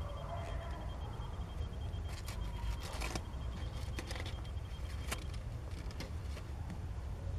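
Mother cat purring as her kittens nurse: a low, steady, pulsing rumble, with faint scattered clicks and rustles from the kittens suckling and shifting against her.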